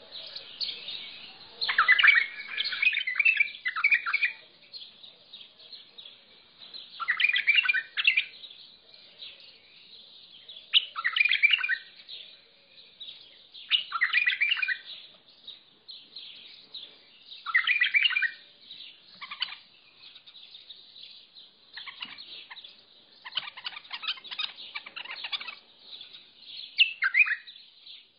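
Mandalawi bulbul singing: a short, loud warbled phrase repeated every three to four seconds, with softer song between phrases.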